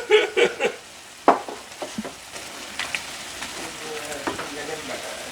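Food sizzling as it fries in a pot while being stirred, with a sharp knock of the utensil against the pot about a second in.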